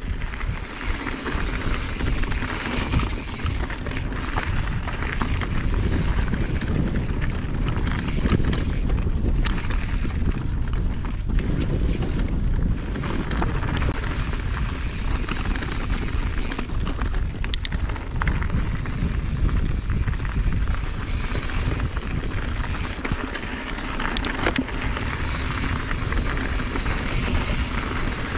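Mountain bike riding over rocky dirt singletrack: wind rumbling on the microphone, tyres crunching over gravel and stones, and scattered clicks and rattles from the bike.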